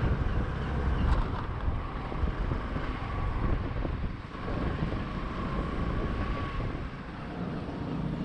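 Road vehicle driving steadily, with engine and road rumble and wind buffeting the microphone.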